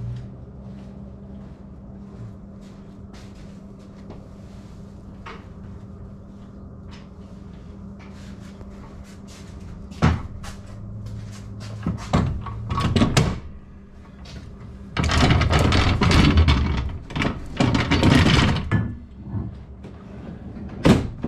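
A steel floor jack is loaded into a vehicle's cargo bed: sharp metal clunks, then a long loud stretch of scraping and rattling as it is slid in, and another clunk near the end. A steady low hum runs underneath.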